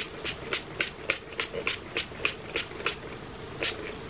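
Fine-mist pump spray bottle of rose water face mist, spritzed again and again in quick succession, about three or four short sprays a second, with a brief pause near the end.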